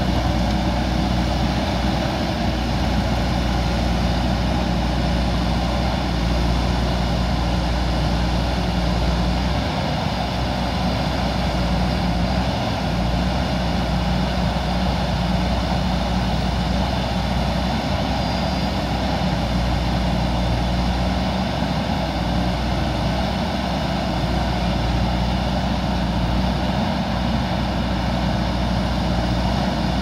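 JCB 3DX backhoe loader's four-cylinder diesel engine running steadily while the front bucket pushes soil.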